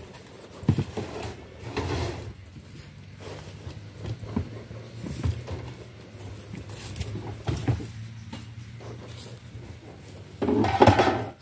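Wooden speaker and amplifier cases knocking and thumping as they are handled and stacked, scattered irregular knocks over a faint steady low hum, with a louder burst near the end.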